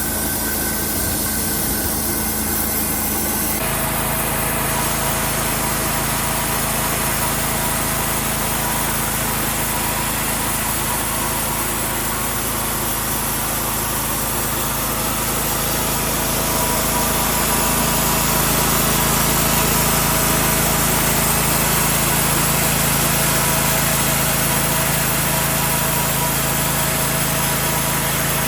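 Sawmill running steadily while sawing a cedar log. A few seconds in its sound fills out, and it grows louder just past halfway.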